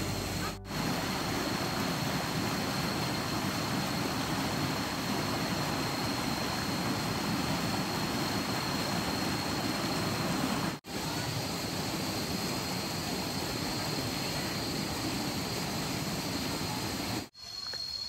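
Small forest stream running over rocks: a steady rush of water, with a thin steady high tone above it. The sound breaks off for a moment twice, about half a second in and near the end.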